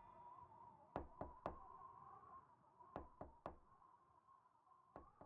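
Knocking on a door, three quick knocks at a time, repeated about every two seconds, over a faint steady tone.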